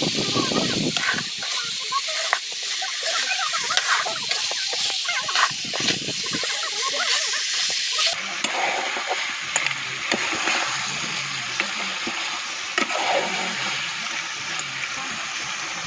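Pork trotter pieces sizzling and frying in a metal karahi, a steady loud hiss, with a metal spoon clinking and scraping against the pan as they are stirred.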